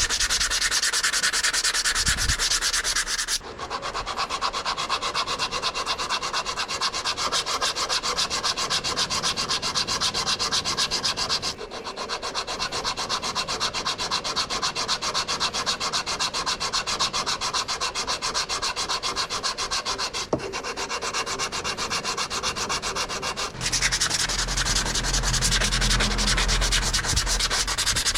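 Steady, rapid scraping and rubbing, like hand-brushing or sanding metal parts. It breaks off abruptly and resumes several times, and a low hum joins it in the last few seconds.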